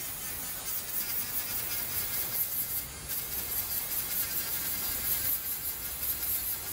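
Dremel Stylo pen-style rotary tool running with a 240-grit sanding head against the edge of a wooden bowl's rim: a small motor's buzz with the hiss of abrasive on wood, rising and falling as the tool is worked back and forth.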